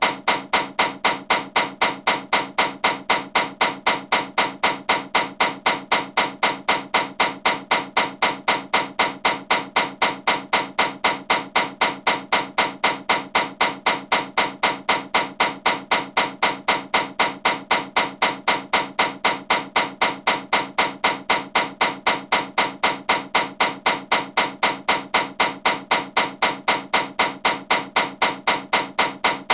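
Ceiling fan running with a loud, evenly repeating knock, about four knocks a second.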